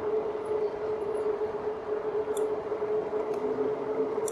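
2018 RadMini fat-tyre electric bike ridden at about 16 to 18 mph: a steady whine over rolling road noise, with a few faint ticks.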